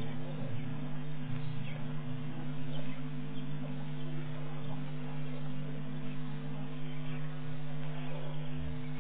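A steady low hum made of a few fixed tones that do not change in pitch or level, under a faint hiss.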